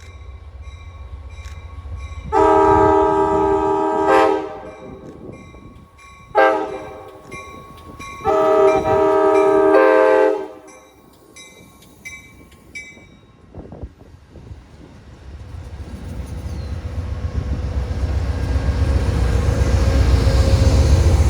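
Train horn with several tones at once, sounding a long blast, a short one and another long one: the warning pattern for a grade crossing. After it, the low rumble of the approaching train builds steadily toward the end.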